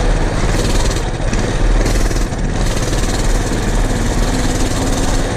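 Engine of heavy farm machinery running steadily close by, a loud, even noise with a deep low rumble.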